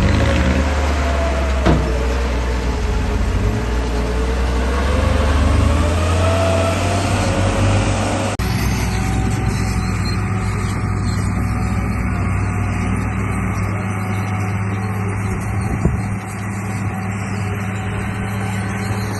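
Radio-controlled bulldozer running: a steady low hum with a motor whine that rises and falls as it drives. The sound changes abruptly about eight seconds in, and there are single clicks near the start and near the end.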